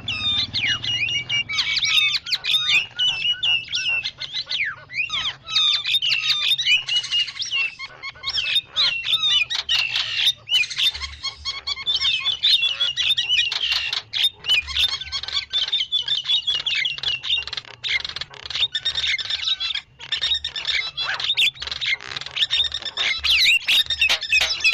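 Starlings (jalak) calling without pause: rapid chattering whistles, chirps and sharp clicks, in the manner of a lure recording used to draw in or train starlings.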